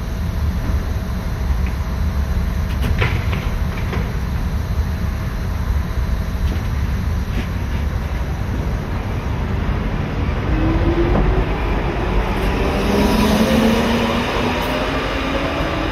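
Hamburg Hochbahn DT2 U-Bahn train pulling out of a station: a steady low rumble with a couple of knocks early on, then from about ten seconds in the traction motors' whine climbs in pitch as the train gathers speed.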